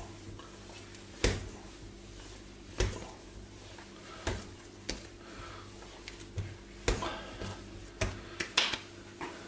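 Hands working a sticky ball of bread dough on a wooden worktop: a scattered series of short knocks and pats, about eight, as dough and palms meet the wood. The loudest comes a little over a second in.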